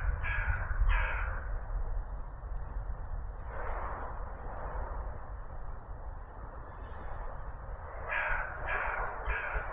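A crow cawing: three harsh caws right at the start and three more near the end, with a quieter stretch between.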